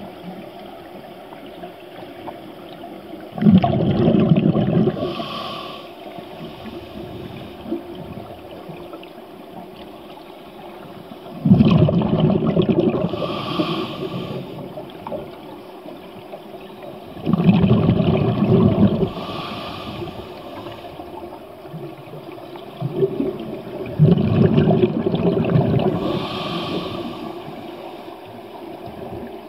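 Scuba diver breathing through a regulator underwater: four rumbling bursts of exhaled bubbles, each about two seconds long and several seconds apart, with a short hiss between them as the diver inhales.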